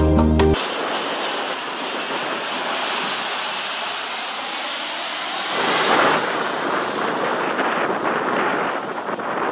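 Four-engine jet airliner, a BAe 146, passing low overhead with landing gear down: steady jet noise with a faint high whine, swelling about six seconds in. A short bit of music ends in the first half-second.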